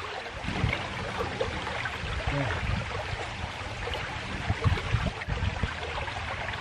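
Fast, muddy stream swollen after days of rain, rushing steadily over rocks, with irregular low rumbles under the wash of the water.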